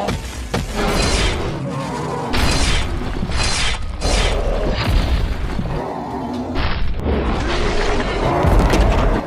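Action music with repeated heavy booms and crashing impacts, as in a fight scene's sound effects.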